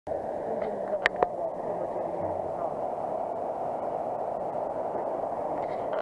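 Waterfall rushing steadily, with two sharp clicks about a second in.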